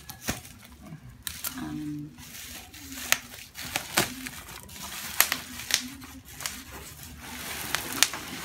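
Plastic bubble wrap being cut with scissors and pulled off a cardboard box: crinkling and tearing with many sharp snips and clicks.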